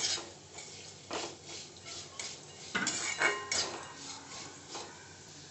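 Metal spatula scraping and clinking against a metal kadhai as crushed dry Maggi noodles are stirred and roasted in a little oil, in irregular strokes.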